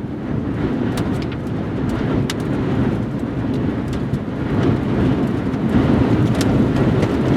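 Strong rear-flank downdraft wind, estimated at around 70 mph, in a loud, steady low rush that builds slightly, with scattered sharp ticks.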